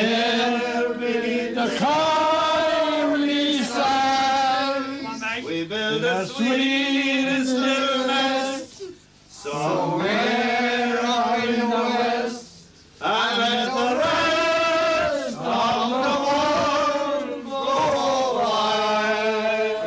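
Unaccompanied singing by a man, holding long notes in sung phrases, with two short breaks about nine and twelve and a half seconds in.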